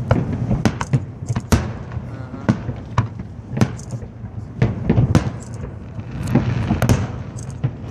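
Aerial fireworks shells bursting in quick, irregular succession: well over a dozen sharp bangs, some close together, over a steady low rumble.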